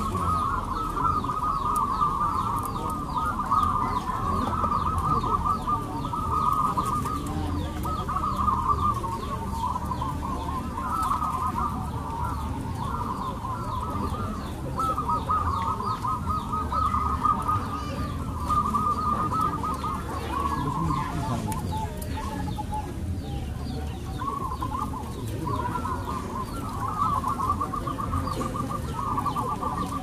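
Many caged zebra doves cooing at once, their rapid trilled coos overlapping without a break, over a low background rumble.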